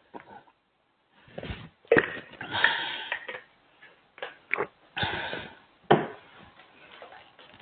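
Irregular knocks and brief scraping or rubbing sounds at uneven intervals, a few of them loud.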